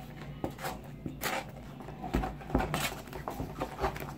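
Plastic spoons stirring sticky slime in a foam cup and a plastic cup: irregular soft clicks, scrapes and squishes.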